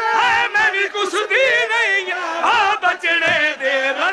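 Several men's voices singing a drawn-out Punjabi majlis lament together, melismatic and wavering with heavy vibrato, without a break.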